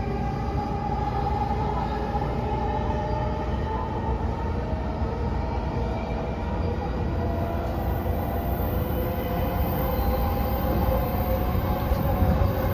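Running sound of a JR East E233 series 0 electric commuter train, heard inside the passenger car: a steady rumble from the wheels on the track with a few steady whining tones from the traction motors and inverter on top. It grows a little louder near the end.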